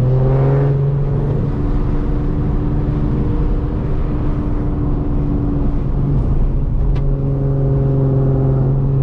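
Nissan Z sports car's engine and exhaust running steadily as it drives along, a low even drone. The drone eases off about a second and a half in and comes back strongly around six seconds in, with a single short click near seven seconds.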